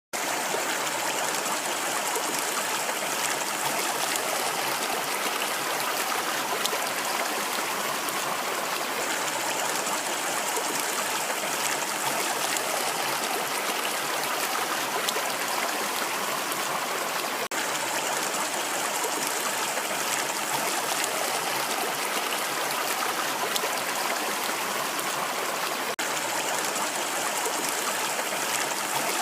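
Rushing water running steadily with an even hiss, broken by two split-second dropouts.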